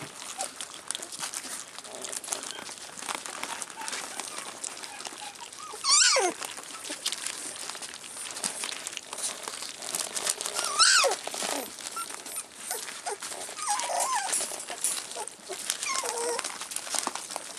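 Rough collie puppies, about three weeks old, lapping and smacking at soft food in a metal feeding dish, with newspaper crinkling under their feet. A puppy gives a sharp, quickly falling squeal about six seconds in and again near eleven seconds, with softer whimpers later on.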